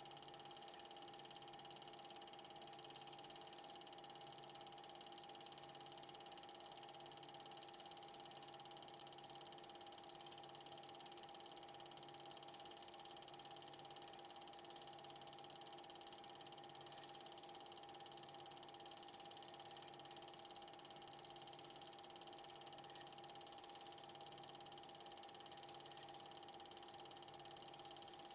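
Faint steady machine hum with several high whining tones and a soft low throb repeating about every second and a quarter.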